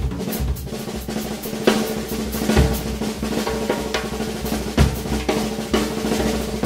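Ludwig drum kit played solo: rapid rolls on the snare and drums with bass drum strokes underneath, and a few louder accented hits about two, two and a half and five seconds in.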